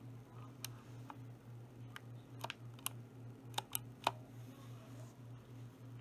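Keys on a mechanical keyboard pressed one at a time as a newly fitted resin keycap is tested: about eight sharp separate clacks, the loudest bunched a little past the middle, over a steady low hum.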